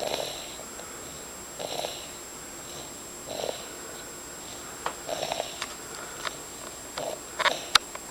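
Snoring of a sleeper: a short breath noise about every 1.8 seconds, evenly paced. A few sharp clicks come in the second half, the loudest near the end.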